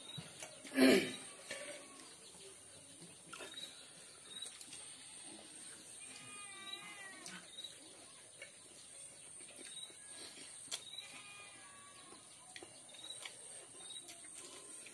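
Background animal calls: two quavering, wavering calls around the middle and about two-thirds of the way through, with a louder short sound about a second in.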